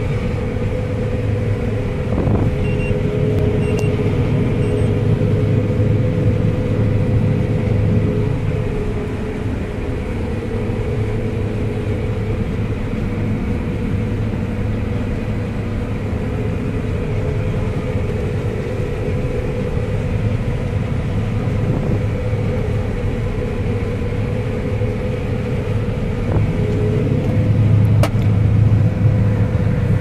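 John Deere 9870 STS combine running steadily while harvesting wheat, heard inside the cab: a continuous deep drone with a constant higher hum over it. A faint single click about 28 seconds in.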